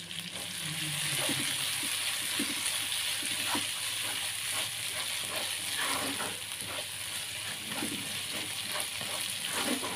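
Chili and shallot paste with onions sizzling in a wok while a spatula stirs and scrapes through it: a steady frying hiss with scattered short scrapes and taps.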